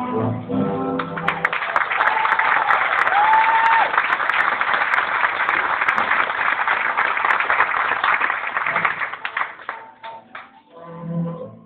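Audience applauding steadily for a few seconds, with a short whistle early on, over a music backing track that comes back through as the clapping dies away near the end.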